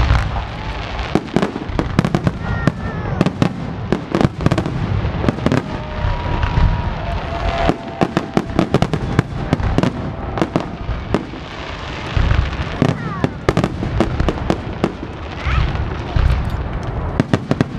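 Fireworks finale: a barrage of aerial shells launching and bursting, with booms and sharp pops following one another several times a second.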